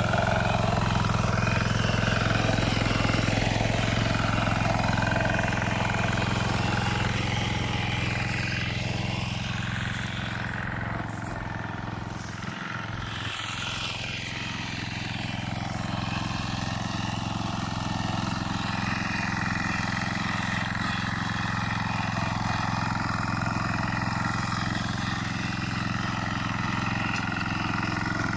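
Walking tractor (patpat) engine running steadily while the machine tills a slope, a little quieter around the middle.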